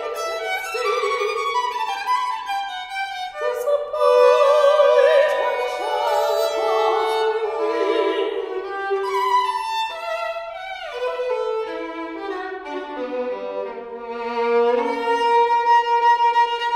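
Solo violin playing a slow passage of bowed notes, with a wavering vibrato note about four seconds in and a quick downward slide around ten seconds in, settling onto long held notes near the end.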